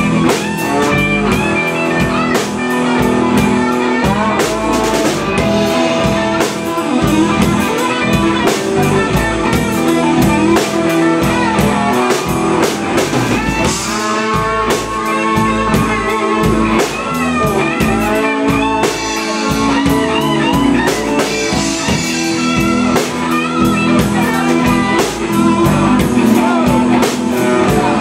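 Live blues-rock band playing: electric guitars, bass and drum kit, loud and continuous.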